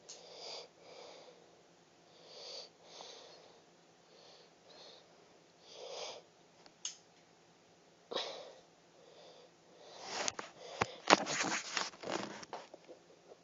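Breathing close to the microphone, soft slow breaths every second or two. About ten seconds in comes a burst of rapid clicks and clattering.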